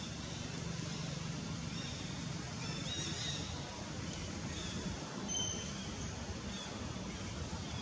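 Steady outdoor background noise, a low hum under a faint even hiss, with a few faint, short high-pitched chirps scattered through it.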